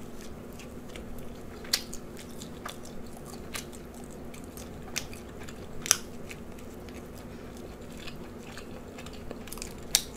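A person chewing food close to the microphone: soft wet mouth clicks with a few sharper clicks every couple of seconds, over a faint steady low hum.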